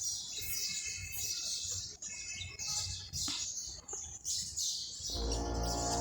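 Birds chirping and calling in short repeated bursts of high notes. About five seconds in, music with sustained low notes comes in.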